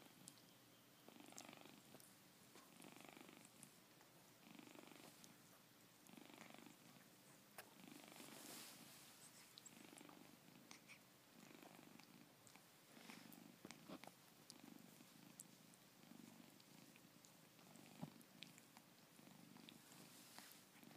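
Tabby cat purring faintly, the purr swelling and fading with each breath about every second and a half to two seconds.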